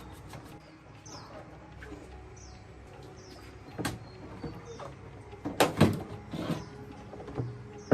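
Several sharp knocks and clatters of hard objects being handled, loudest in a cluster a little past the middle, with short bird chirps in the background early on.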